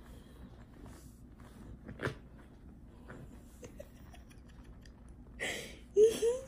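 Quiet room with faint rustling and a soft knock about two seconds in; near the end a breathy burst, then two short, loud vocal sounds whose pitch bends upward.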